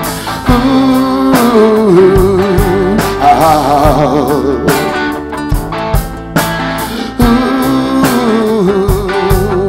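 Live rock band playing: drum kit, bass guitar, acoustic and electric guitars, with a long, wavering melody line held over them twice.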